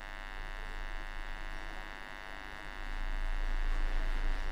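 Steady electrical buzz with a low mains hum underneath, getting somewhat louder about three seconds in.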